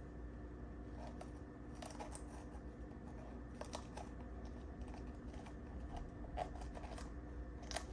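Small kitchen knife making light, irregular clicks and taps on a cutting board while cutting the seeds out of a jalapeño.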